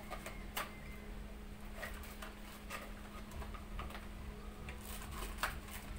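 Scattered light clicks and taps of packaging being handled on a table: a cardboard box, papers and plastic wrapping. A low steady hum runs underneath.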